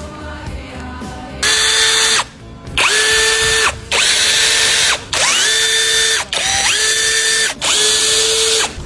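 A power drill or driver runs in six short bursts of about a second each, its motor whining up to speed at the start of every burst. Background music plays before the first burst.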